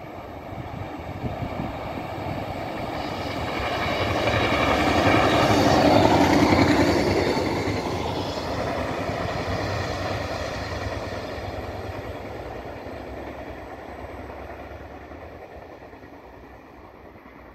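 PESA SA132 diesel railcar passing by on the line. It grows louder, is loudest about six seconds in, then slowly fades away.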